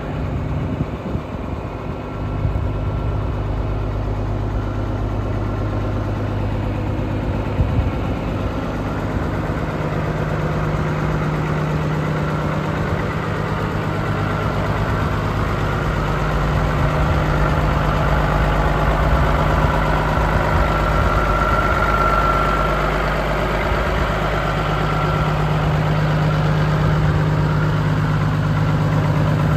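A CAT 3406 inline-six diesel engine in a 1991 International 9300 truck idling steadily, a little louder from about two seconds in.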